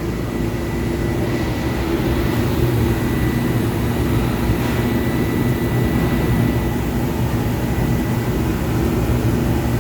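Small refrigeration compressor of an electrical-cabinet cooler running with a steady hum and a faint constant high whine; its condenser fan motor is seized and not turning.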